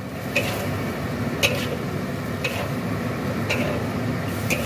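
Metal ladle knocking and scraping against a wok about once a second while stir-frying vegetables, five sharp clicks in all, over a steady sizzle from the pan.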